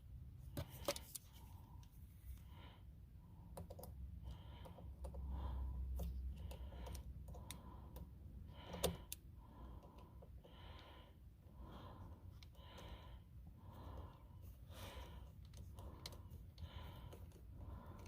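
Faint scraping twists and small clicks of a small screwdriver driving a tiny screw, repeating about once a second.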